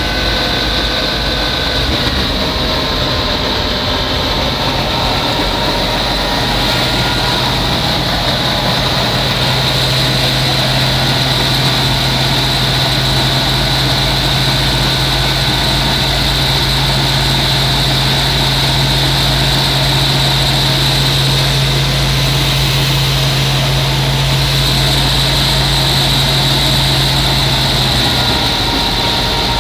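Wheat threshing machine running steadily at work, a loud continuous mechanical din. A low steady hum joins it several seconds in and drops out near the end.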